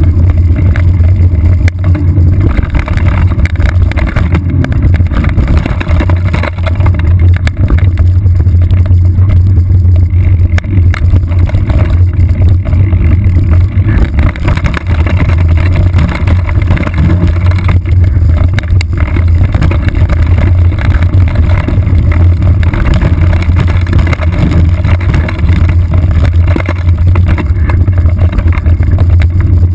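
Loud, steady low rumble of a trail ride heard from a saddle-mounted GoPro HD2 in its housing, with occasional sharp knocks from the rough ground.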